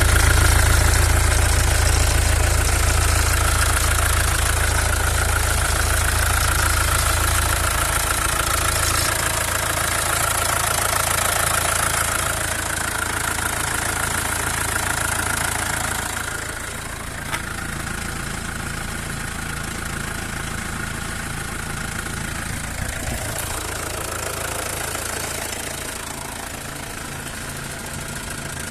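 Mercedes OM651 four-cylinder diesel idling with its accessory belt removed, the odd noise still present, so it is not coming from the belt or belt-driven accessories. The sound gets somewhat quieter about halfway through.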